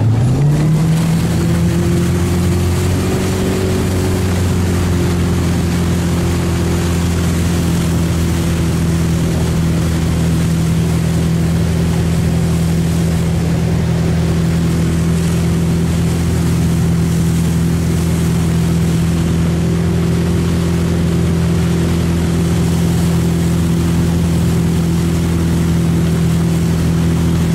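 Towboat engine pulling a wake surfer up from the water: its pitch rises over the first second or so as it speeds up, then it runs steadily at cruising speed, with rushing water from the wake beneath it.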